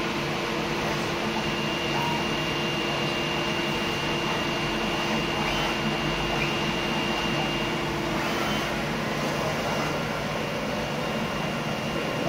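Zünd G3 digital cutting machine running steadily while it cuts composite sheet: an even machine noise from its vacuum hold-down table and moving cutting head, with a faint high steady whine.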